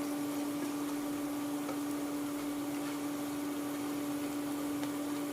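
Breaded sand goby fish frying in hot oil, a steady even sizzle, under a constant electrical hum.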